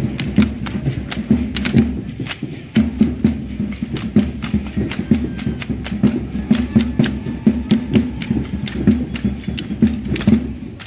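Matachines dance music: a drum beating a steady rhythm under a dense, rapid clatter of sharp clicks from the dancers' rattles and stamping steps.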